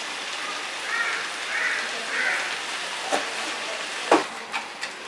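Onions and tomatoes sizzling in hot oil in an iron kadai, with three soft scrapes of a wooden spatula in the first half, then a few sharp knocks of the spatula against the pan from about three seconds in.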